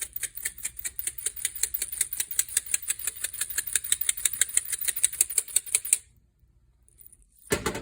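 Black pepper being dispensed over the pan: a rapid, even run of crisp clicks, about six a second, that stops abruptly about six seconds in. A short, sharp noise follows near the end.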